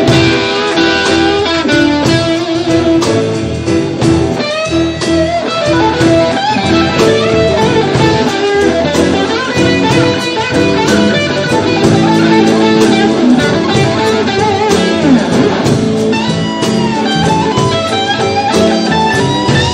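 Live blues band playing an instrumental passage, with electric guitar leading over drums. The guitar's notes bend and waver in the second half.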